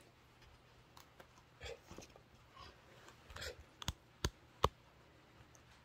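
Faint handling noise at a workbench: scattered soft taps and clicks, with three sharper ticks close together about four seconds in.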